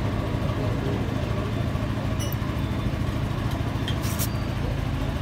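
An engine idling steadily with a low hum, with a couple of light clicks about two and four seconds in.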